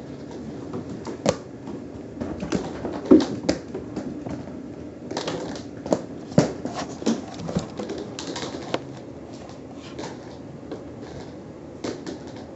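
A cat pouncing and scrambling on a hardwood floor after a string toy: irregular clicks, taps and knocks of paws and claws, with the loudest knocks about three and six seconds in.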